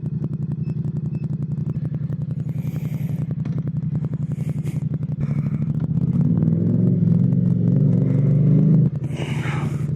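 Motorcycle engine idling with a steady, even beat, then running louder under a little throttle from about six seconds in before dropping back to idle near the end.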